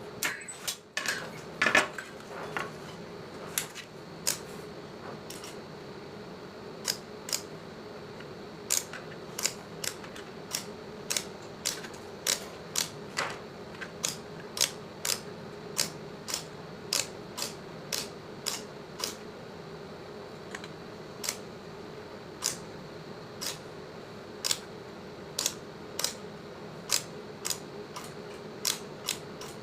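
Sharp, short snapping clicks at irregular intervals, about one or two a second, from stainless steel being soldered, over a steady machine hum.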